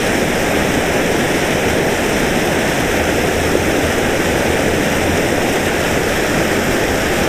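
Loud, steady rush of water pouring out of a large drainage culvert.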